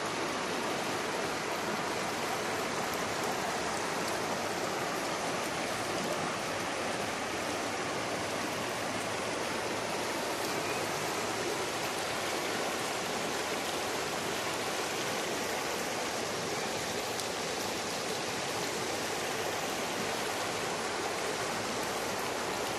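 Shallow river running fast over stones in small rapids: a steady, even rush of flowing water.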